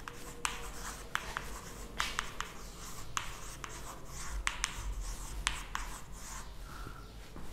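Chalk writing on a chalkboard: a quick, irregular run of sharp taps and scratchy strokes as words are written.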